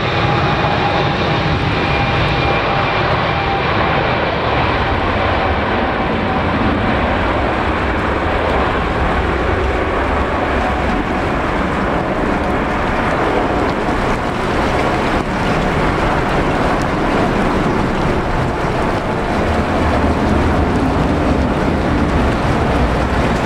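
Boeing 777-200's jet engines running at high power as the airliner rolls along a wet runway: a loud, steady rush, with a high whine that fades out over the first several seconds.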